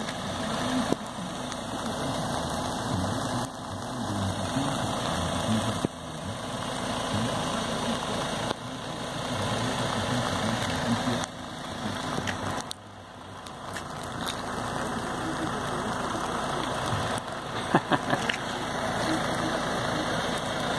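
A box van's engine idling, under a steady hiss of sleet falling.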